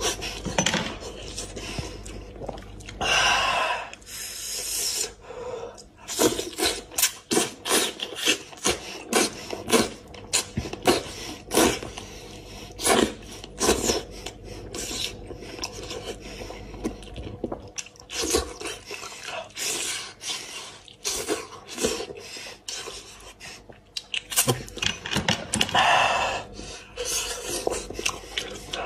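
Close-up eating sounds of a man gnawing goat's head meat off the bone: wet lip smacks, sucking and chewing, with many sharp irregular clicks and a couple of longer sucking stretches.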